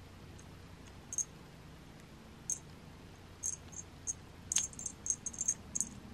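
Sharp little clicks of a cat's teeth and mouth knocking on a thin black wand stick as he chews and rubs his face on it, a few scattered clicks at first, then a quick run of them over the last second and a half.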